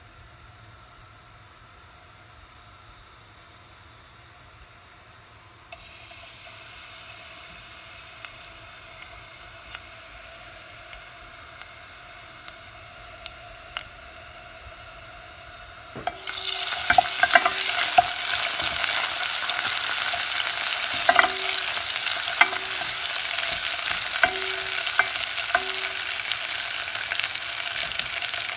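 Oil frying in a stainless steel pot: a light sizzle starts about six seconds in as grated ingredients go into the hot oil, then a much louder, steady sizzle begins about sixteen seconds in as a heap of shreds is added. A spoon clicks and clinks against the pot as it is stirred.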